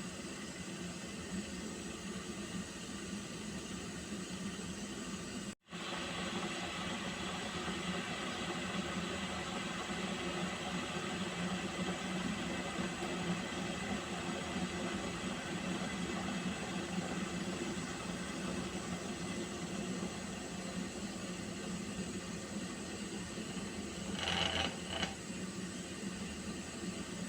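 Pot of water heating toward the boil: a steady hiss with a low hum. The sound cuts out for an instant about five seconds in, and a short higher sound comes near the end.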